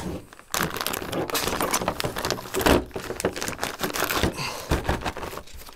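Clear plastic bag crinkling and rustling as it is handled and searched through, with irregular quick clicks.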